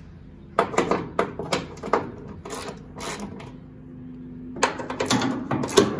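Socket ratchet clicking in quick runs as it works the hood-to-hinge bolts loose, in three spells: about half a second in to 2 s, briefly around 3 s, and again from near the 5-second mark.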